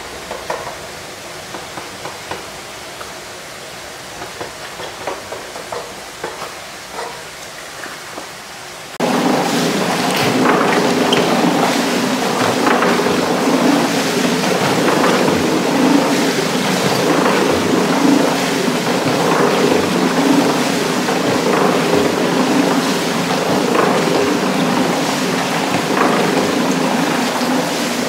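Small clicks and taps of knives on cutting boards over quiet factory room noise; about nine seconds in, loud gushing and splashing of hose water pours into a stainless steel washing tank of cut squid, with a steady hum beneath it.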